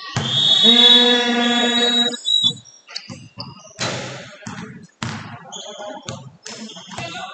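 Basketball game sounds: a steady held tone lasting about two seconds at the start, then scattered ball bounces and short high squeaks from the court.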